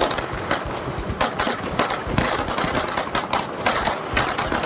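A string of firecrackers going off on a road: a rapid, irregular crackle of sharp bangs.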